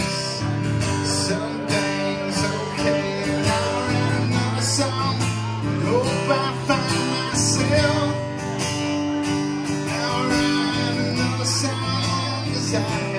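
Acoustic guitar strummed in a steady rhythm, ringing chords with no vocal line.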